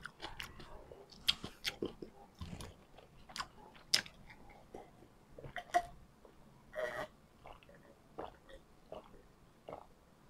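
Close-miked chewing of a mouthful of food, leftover onion from adobo, heard as many short, sharp mouth clicks through the first half. Later come sparser sounds as water is drunk and swallowed from a glass.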